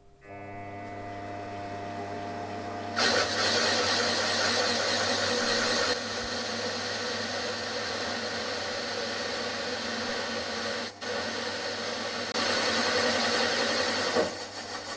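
Milling machine running a 1-inch slot drill: a steady motor hum, joined about three seconds in by a loud, rough cutting noise as the cutter plunges into the flywheel. The cutting noise breaks off briefly a couple of times and drops away near the end.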